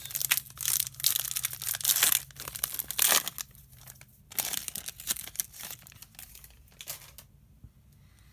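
Foil-plastic wrapper of a Topps baseball card pack crinkling and tearing as it is ripped open, loudest for the first three seconds. Quieter, scattered crinkling follows as the cards are pulled from the wrapper, dying away about seven seconds in.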